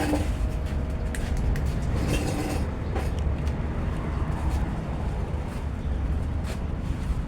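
Isuzu Mu-X engine running with a steady low rumble and a few faint clicks.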